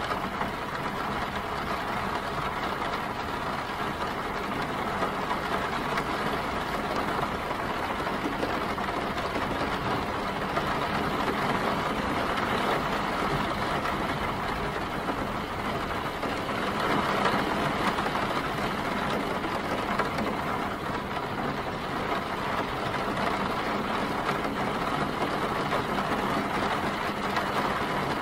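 Steady rain mixed with city street traffic, with vehicle engines idling, an even wash of noise with no single event standing out.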